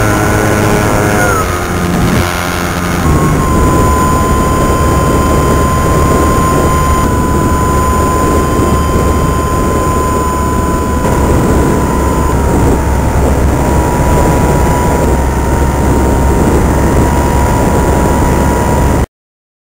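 Motor and propeller of a radio-controlled model aircraft in flight, picked up by its onboard camera: a steady high whine that drops in pitch a second or two in, over rushing wind and vibration noise. The sound cuts off suddenly near the end.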